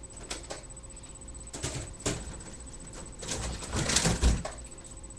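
Handling noise of plastic Nerf blaster parts: a few scattered clicks and knocks, then a longer bout of rattling and knocking about three to four and a half seconds in.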